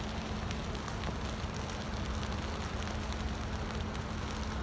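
Dry grass fire burning: a steady rushing hiss with scattered sharp crackles, over a low steady hum.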